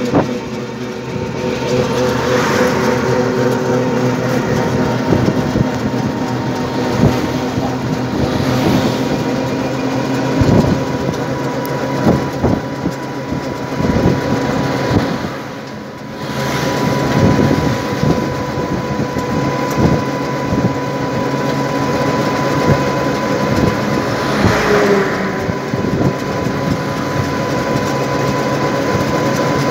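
Inside a moving motor vehicle: the engine runs with a steady hum over road and wind noise. A few times a louder rush swells and fades as traffic passes.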